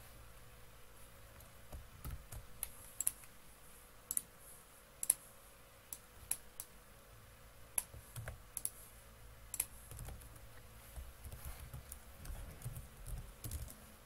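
Computer keyboard keystrokes and mouse clicks. About a dozen separate sharp clicks are spread out with pauses between them.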